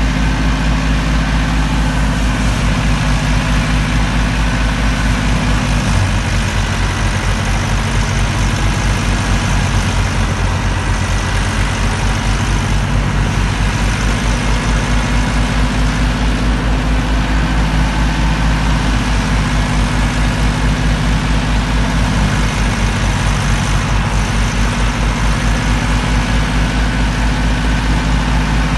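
Massey Ferguson 385 tractor's diesel engine running steadily under load, powering a wheat thresher off its PTO, the thresher's drum running with it. The engine note shifts slightly about six seconds in.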